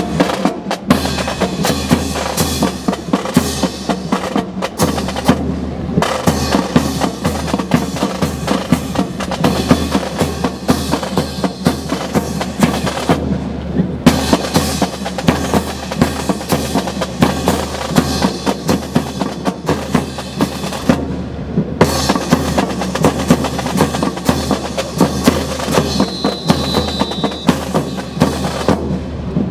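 Marching snare drum beating a steady, rapid cadence that keeps time for a rifle drill team, pausing briefly now and then.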